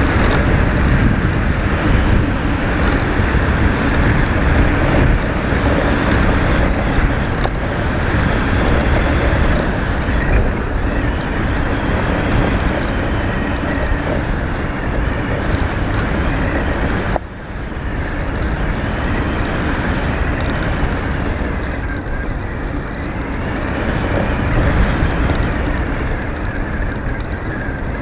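Steady rush of wind over the microphone of a camera carried aloft on a flying model aircraft, briefly dipping partway through.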